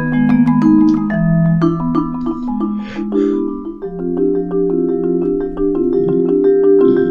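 Music: a mallet-percussion melody of quick struck notes over held lower tones.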